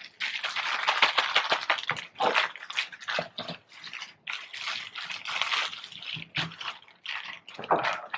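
Wet squishing and crackling as sauce is added to a fried chicken sandwich and the sandwich is handled, in uneven clusters of quick sticky, slopping noises.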